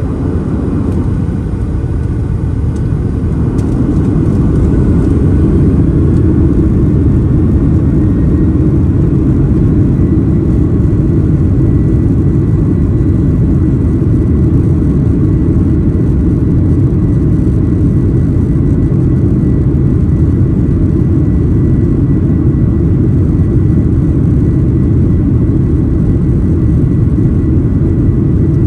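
Boeing 737-900ER's CFM56-7B jet engines at high power, heard inside the passenger cabin as a loud, deep, steady rumble that builds over the first few seconds and then holds. A faint steady high tone joins about a third of the way in.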